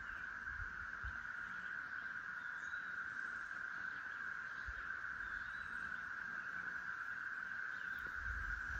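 Steady, unbroken droning chorus of 13-year periodical cicadas, a continuous high hum, with a few faint bird chirps over it.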